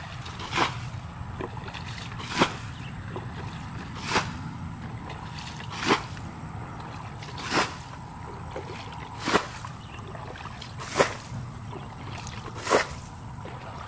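Water being bailed out of a shallow muddy pond with a plastic basin: a splash about every second and a half to two seconds as each scoopful is thrown out, eight times in a row in a steady rhythm.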